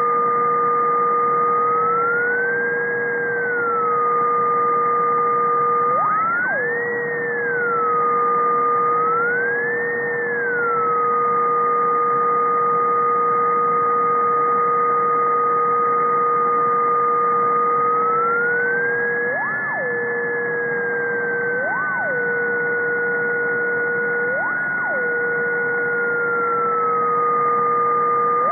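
Ultrasonic emission from above 50 kHz, brought down into hearing range, that the uploader suspects comes from a switched-mode power supply. A steady low tone runs under a higher tone that glides up and back down several times, like a slow siren, with a few brief upward chirps.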